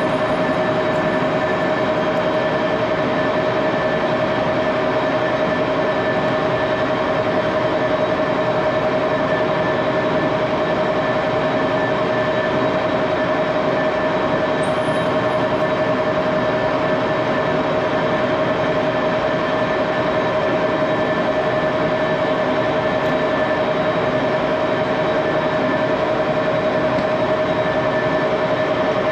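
Old lathe running steadily at speed, a constant high whine over dense mechanical noise that stays even throughout.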